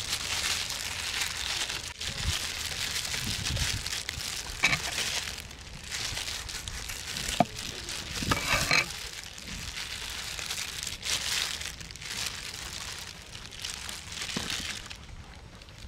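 Thin plastic food glove crinkling and rustling as hands pull and knot dried tying strips around a rolled pork belly, with a few brief sharp clicks.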